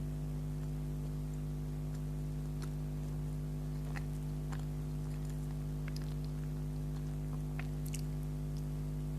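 Close-miked chewing of soft bakery food, with scattered small wet mouth clicks, over a steady low electrical hum.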